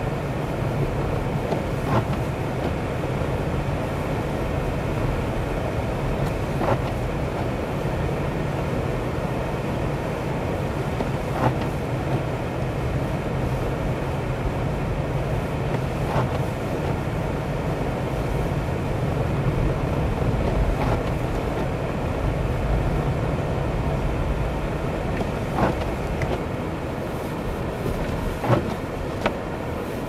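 Car cabin noise while driving on snow-covered roads: the engine and tyres make a steady low rumble. Light clicks come every four to five seconds or so, with two close together near the end.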